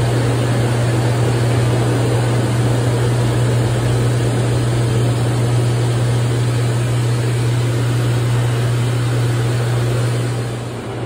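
Hydromassage bed running: a steady low hum from its pump with a rushing noise over it, easing slightly near the end.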